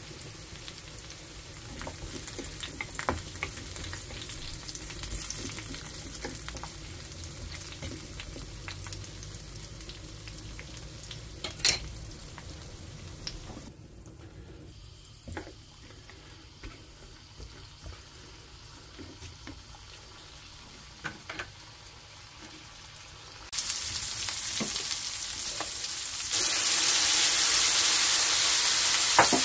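Diced vegetables frying in oil in an enamelled paella pan, a steady sizzle with a wooden spatula stirring and now and then scraping or knocking against the pan. The sizzle drops quieter about halfway through, then turns much louder and brighter near the end as grated tomato goes into the hot pan.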